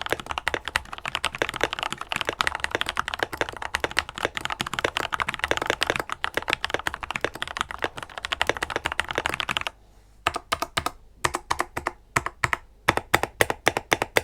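Typing on a modded MageGee Sky 98 mechanical keyboard with hand-lubed Royal Kludge switches, foam and tape mod, and PBT double-shot keycaps. A fast, dense run of keystrokes, then slower single key presses from about ten seconds in.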